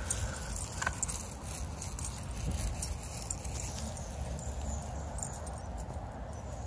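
Light rustling and small clicks of footsteps in dry leaves and grass, over a steady low rumble.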